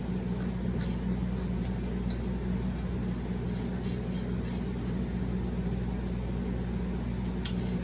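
A steady low hum runs throughout, with a few faint short clicks of mouth and chewing sounds from someone eating.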